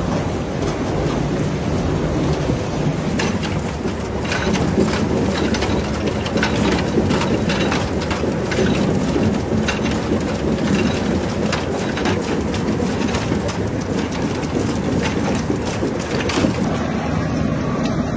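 Cassava-root processing machinery running, a steady rumble with a dense clatter of clicks and knocks as the roots tumble through a paddle washer and shaker sieve. Near the end the clatter stops, leaving the lower rumble.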